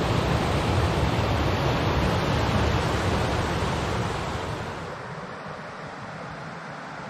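Water rushing over a low rocky cascade on a forest river, a steady full rush. About four to five seconds in it drops clearly in level and turns to a thinner, quieter flow.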